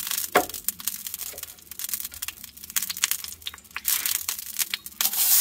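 Orange bell pepper being cut up, a run of irregular crisp crunches and clicks. About five seconds in, a steady sizzle starts suddenly as food goes into hot oil in the pan.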